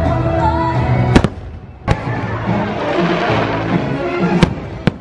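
Aerial fireworks shells bursting: about five sharp bangs, two close together about a second in, one near two seconds and two more near the end, with a spell of crackling in the middle. Show music plays underneath, loudest in the first second.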